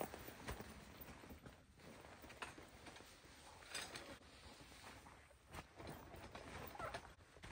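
Faint rustling of canvas tent fabric with a few light knocks, as someone moves about inside a canvas bell tent and handles it.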